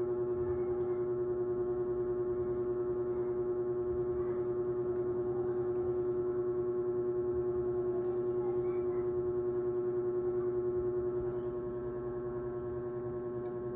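Background music: a steady meditative drone held on one note, rich in overtones, with a slight pulsing and a small drop in level near the end.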